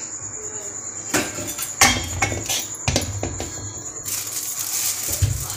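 A cup knocking against a stainless steel bowl several times as flour is tipped out of it, with a low thump near the end.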